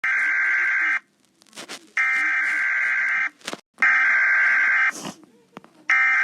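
Siren Head's call: four loud, harsh, distorted siren blasts with a radio-like tone, each about a second long, with short gaps between them.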